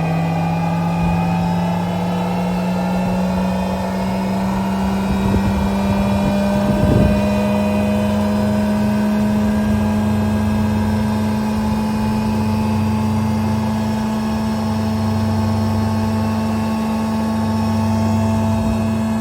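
Żefam DSZC-40 jointer-planer running: its 3 kW motor and three-knife cutterhead give a steady whine whose pitch edges up over the first few seconds and then holds. A brief rougher, louder patch comes about six to seven seconds in.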